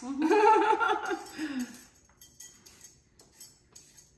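A voice for about the first two seconds, then a vegetable peeler scraping down a raw carrot in quick, light strokes, about three a second.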